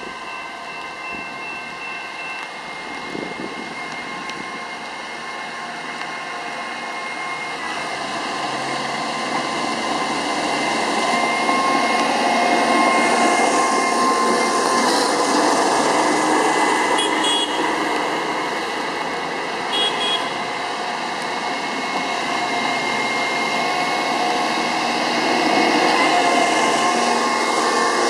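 Diesel engines of rail-bound track maintenance machines running as they roll toward the listener along the track, growing louder over the first twelve seconds or so and then staying loud. Two brief high beeps, about three seconds apart, come in the second half.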